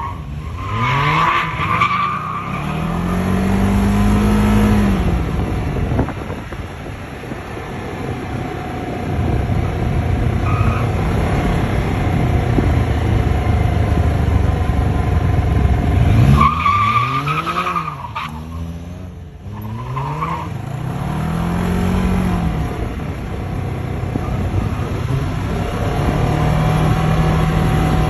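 Can-Am Spyder F3's three-cylinder engine accelerating through the gears while riding: the engine note climbs and levels off over and over, with a brief letting-off about two-thirds of the way through, over steady road and wind noise. A high whine rises with the hardest pulls near the start and again later on.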